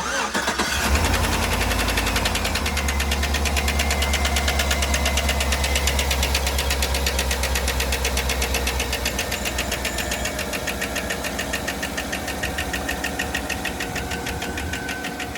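Chevrolet Suburban's 5.3-litre LS V8 starting right away and settling into a steady idle, a little lower after the first couple of seconds, with a fast, even ticking running through it: the ticking noise the owner is trying to fix on this engine.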